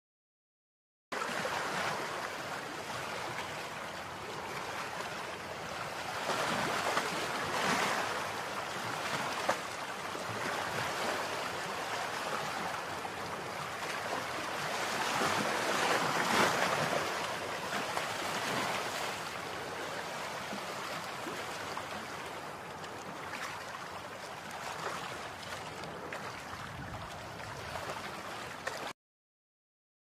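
Steady rush of running water, swelling and easing every few seconds. It starts abruptly about a second in and cuts off just before the end.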